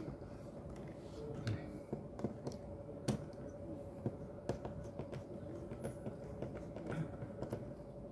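Screwdriver working a terminal screw on a small DC circuit breaker to clamp a wire's crimp terminal, making scattered small clicks and ticks. A steady hum runs underneath.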